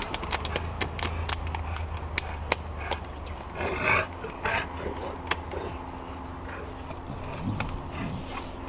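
A large dog lapping water from a plastic pond tub: a quick, irregular run of wet clicks for about three seconds, then a louder splashy lap about four seconds in, then quieter sounds.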